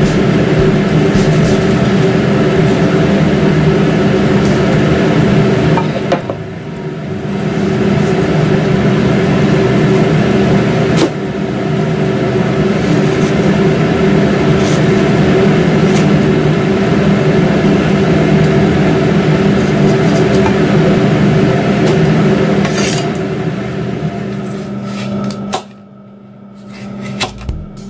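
Loud, steady hum of a running kitchen appliance. It dips about six seconds in and cuts off near the end. A knife knocks on the plastic cutting board a few times as watermelon is sliced.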